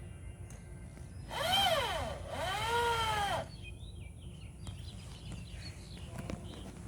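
Power drill driving Torx screws into a fence post: two runs of about a second each, starting a little over a second in, each whine rising then falling in pitch.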